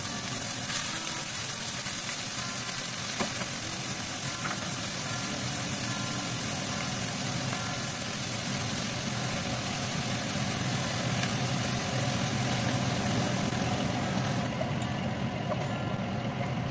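Fresh whitebait (noodlefish) sizzling in hot oil in a nonstick frying pan on a gas stove, a steady hiss with a few light ticks, over a steady low hum. The sizzle stops about fourteen seconds in, leaving the hum.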